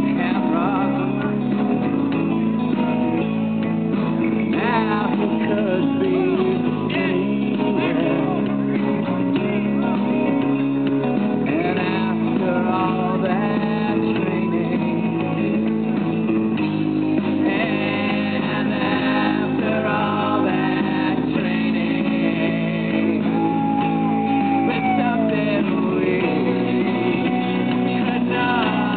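Music playing: a song with singing over guitar.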